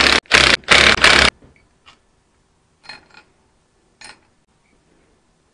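Cordless impact driver hammering in short bursts, about three in the first second and a half, as it backs out head bolts on an air-compressor pump. Then a couple of light knocks.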